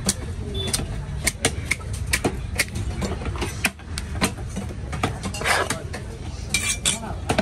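A long knife striking a wooden log chopping block while a diamond trevally is cut up: a string of irregular sharp knocks over a steady low background hum.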